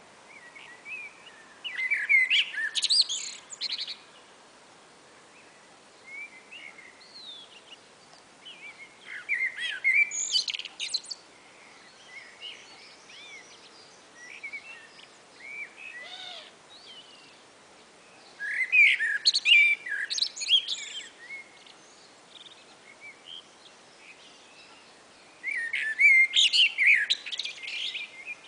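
Blackbirds singing: four loud warbled phrases of a few seconds each, spaced roughly seven to eight seconds apart, ending in high twittering, with fainter phrases in between.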